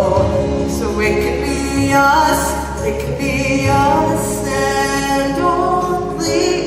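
A teenage girl and boy singing a Broadway ballad duet, held notes with vibrato, over instrumental accompaniment.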